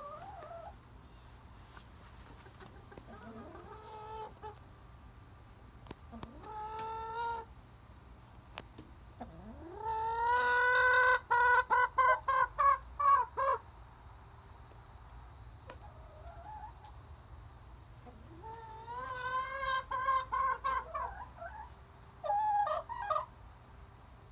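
Hens calling: drawn-out calls that rise in pitch, each running into a string of quick repeated clucks. The loudest run comes near the middle, another about three quarters of the way through, with quieter stretches between.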